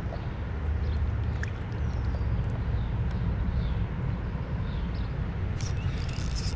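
Steady low rumble of the outdoors, with faint bird chirps. Near the end comes a quick cluster of clicks and rattles as the spinning rod and reel are picked up and handled.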